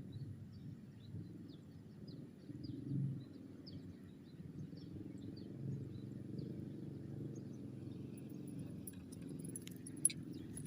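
Small birds chirping in short, quick notes over a steady low rumble, with a few sharp clicks near the end.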